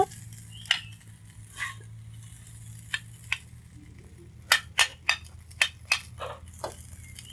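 Spatula scooping fried rice from a wok onto a ceramic plate: a string of short clicks and scrapes as it taps against the plate and pan, coming quicker about four and a half seconds in.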